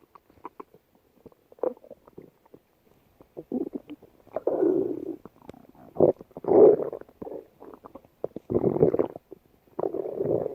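Human stomach growling: irregular gurgling rumbles and small pops, sparse for the first few seconds, then louder gurgles coming every second or so.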